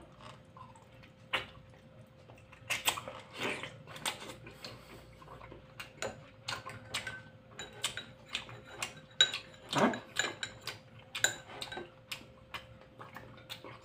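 Close-up eating sounds: a man chewing a mouthful of Korean fish cake, with a metal spoon clicking and clinking against a dish again and again. The clinks ring most clearly in the second half.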